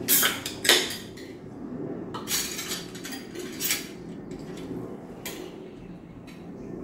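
Cutlery clinking against plates and serving dishes: several separate sharp clinks, the loudest in the first second, over a low steady background murmur.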